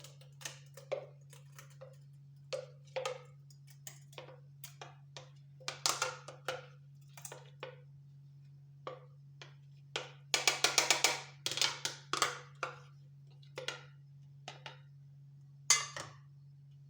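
A spoon scraping and tapping against a bowl and a storage container as ginger-garlic paste is scooped out: scattered clinks and knocks, with a quick run of rapid scraping taps about ten seconds in. A steady low hum runs underneath.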